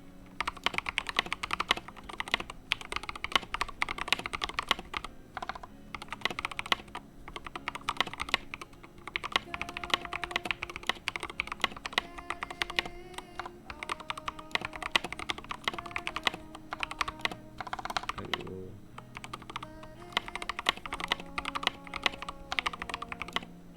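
Typing on a TM680 65% mechanical keyboard fitted with stock Gateron Oil King linear switches, lubed stock stabilizers and SA-profile keycaps: a continuous run of fast keystrokes with a few short pauses. This is the board's sound in stock form, before any case or foam mods.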